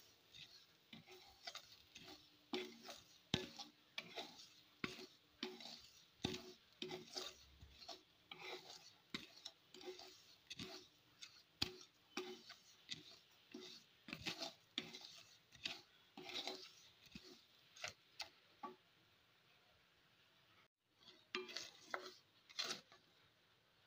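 Spatula scraping and stirring dry rice grains, peanuts and desiccated coconut around a metal kadai as they dry-roast. Faint, quick, irregular strokes, with a pause of about two seconds near the end.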